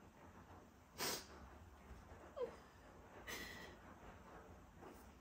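A woman crying softly: a sharp sniff about a second in, a brief whimper a little later, then another sniff.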